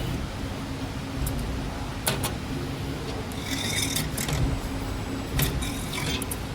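CNC 3D wire forming machine running as it bends wire into hooks: a steady low hum with sharp clicks now and then and a brief hiss about three and a half seconds in.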